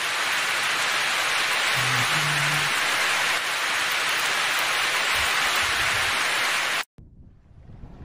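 Heavy monsoon rain falling steadily in a loud, even hiss, cutting off abruptly about seven seconds in.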